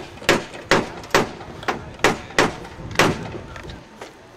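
A series of about eight sharp knocks, roughly two a second, that stop a little before the end.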